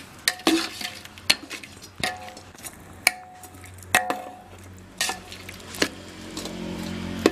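A metal skimmer ladle stirring a curry in a large metal pot, knocking against the pot's side with a sharp metallic clink about once a second. Near the end a metal lid clanks onto the pot.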